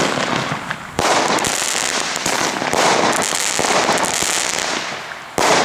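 Weco Alligator consumer firework firing: a sharp bang about a second in, then about four seconds of dense crackling as its shots burst into many small golden crackling stars, fading out before a second bang near the end.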